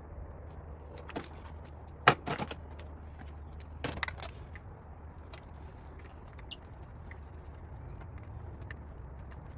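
Metal hand tools clinking and clattering while spark plugs are removed from the engine, with sharp knocks about two and four seconds in and light ticks between.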